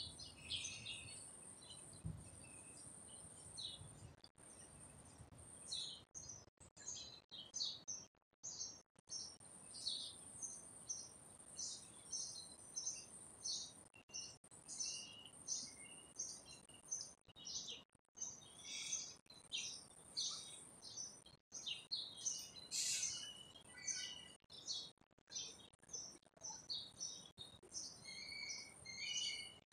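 Small birds chirping, short quick notes repeated many times, over a steady faint high hiss.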